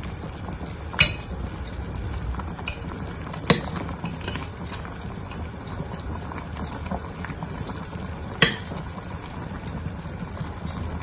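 Metal spoon clinking against a glass pot three times, with a few lighter taps, while thick chocolate glutinous-rice porridge simmers with a steady bubbling sound.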